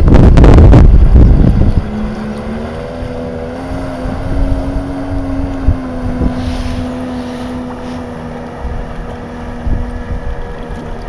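Wind buffeting the microphone for the first couple of seconds, then a jet ski's engine rising in pitch as it accelerates away towing a wakeboarder, then holding a steady drone that fades a little near the end.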